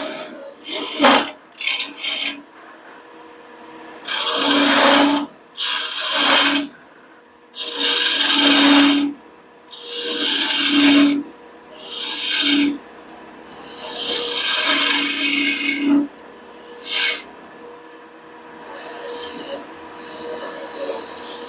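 Turning tool cutting a spinning walnut blank on a wood lathe, in repeated passes of about one to two seconds each, with the lathe's steady hum between them.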